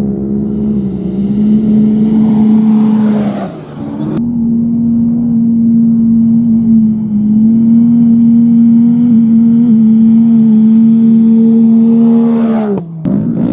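Off-road race vehicle engines running hard at high revs, holding a steady pitch. Twice the pitch falls away and the sound breaks off sharply: once about a third of the way in, once near the end.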